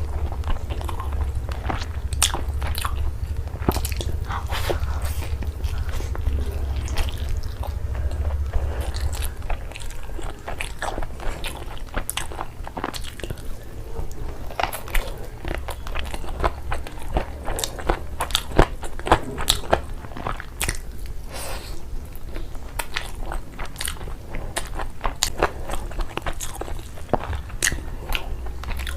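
Close-up eating sounds: chewing and biting, with frequent irregular sharp mouth clicks, over a steady low hum.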